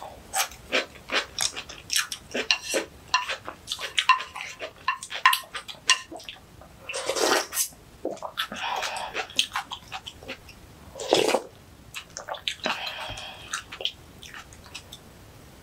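Close-miked crisp crunching of kimchi being chewed, a rapid run of crackles for about six seconds, then several wet slurps of seaweed soup sipped from a spoon.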